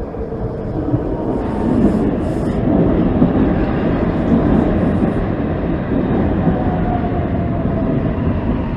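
SEPTA Market–Frankford Line train passing beneath and running off down the track: a loud, steady rumble of wheels on rails with a faint motor whine. It grows louder over the first couple of seconds, then holds.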